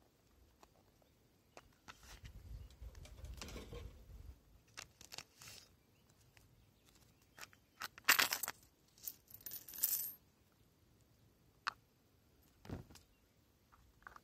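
Coins and cards being handled and set down on a stone surface beside a small wooden wallet: scattered light clicks and rustles, with a cluster of sharp coin clinks in the middle and a single duller knock near the end.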